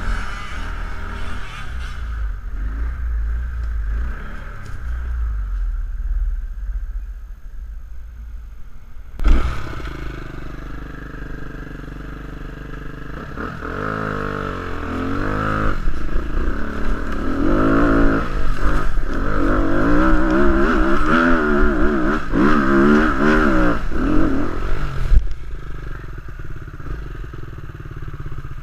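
ATV engine running off-road over a heavy low rumble of wind on the microphone, with a sharp knock about nine seconds in. In the second half the engine rises and falls in pitch again and again as the throttle is worked.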